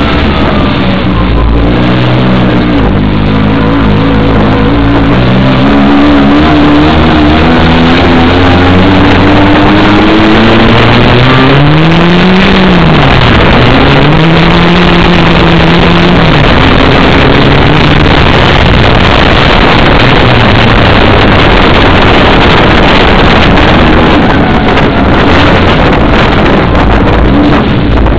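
Race car engine heard loud from inside its stripped cabin, its pitch climbing and falling as it is driven hard on and off the throttle, with one sharp rise and drop about twelve seconds in before it holds a steady pitch.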